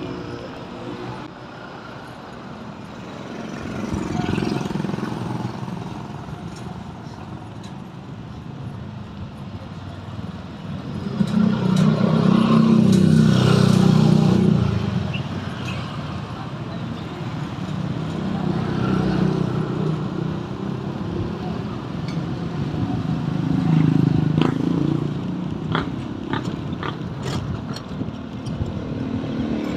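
Road traffic: motor vehicles passing one after another, each engine swelling and fading, with the loudest pass about halfway through.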